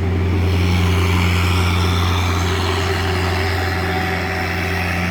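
Engine of a small push boat running steadily under way, a deep even hum with a wash of higher noise over it.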